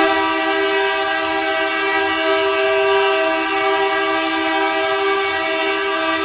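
Ice hockey goal horn, the one played for Canada's goals at the World Junior Championship, sounding one long steady blast, a chord of several tones held at an even level.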